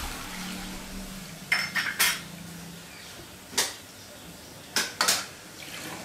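Stainless-steel perforated strainer knocking against the aluminium kadai as fried cornflakes are shaken to drain off the oil. The metal clinks come as a quick cluster about a second and a half in, a single knock past the middle, and another cluster near the end.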